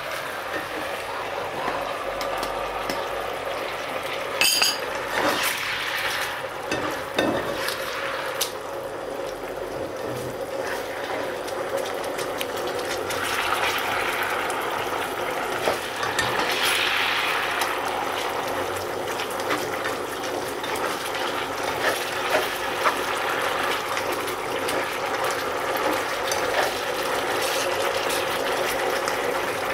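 Fish pieces simmering and bubbling in a cornstarch-thickened soy sauce in a frying pan, stirred with a slotted spatula that scrapes and taps against the pan now and then.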